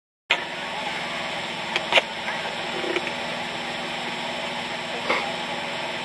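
Engine idling steadily, starting suddenly after a moment of silence, with a few sharp clicks about two seconds in and again near five seconds.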